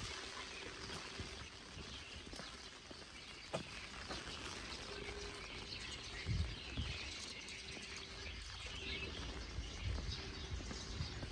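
Heavy rain falling and pattering steadily, with a few low thumps (the loudest about six and a half seconds in) and a sharp click about three and a half seconds in.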